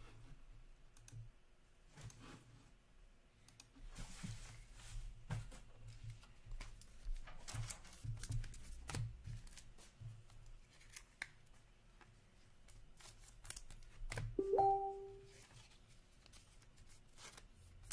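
Hockey trading cards being handled and flicked through by hand: light rustling and clicking of card stock as cards slide over one another. About three-quarters of the way through comes a short, louder squeak with a quick upward slide in pitch.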